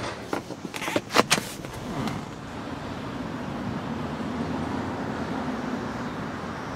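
Passenger seat of a car being tipped forward: several sharp clicks and clunks from the seatback release and hinge in the first second and a half, followed by a steady low hum in the background.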